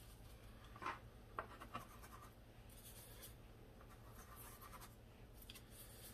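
Faint scraping and tapping of a paintbrush mixing watercolour paint in a plastic palette well, with a few soft taps about a second in.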